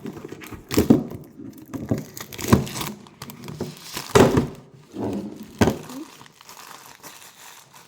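Packaging being handled and unwrapped: crinkling plastic with a series of short knocks and rustles about every second or two, dying down near the end.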